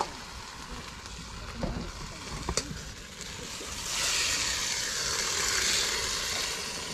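Food sizzling in a hot wok over a wood fire, with a few sharp knocks early on, then the sizzling swelling much louder about four seconds in and staying loud.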